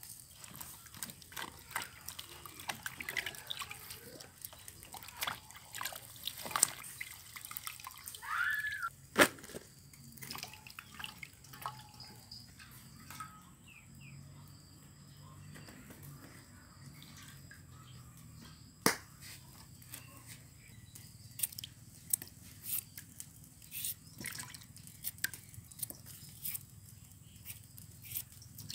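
Hands splashing and rubbing small cucumbers and green onions in a stainless steel bowl of water: irregular drips, sloshes and small clicks, with two sharp knocks about nine and nineteen seconds in.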